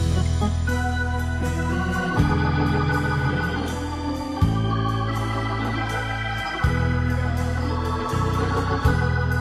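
Hammond organ playing sustained chords over held bass notes, the harmony changing about every two seconds.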